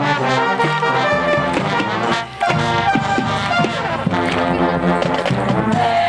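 Marching band playing: brass over drums, cymbals and mallet percussion, with a brief pause about two seconds in.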